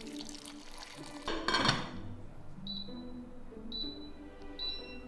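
Boiling water poured from an electric kettle into a glass stew-pot insert: a short rush about a second and a half in. Then come three short high beeps about a second apart from the electric stew pot's control panel as its cooking time is set. Background music plays throughout.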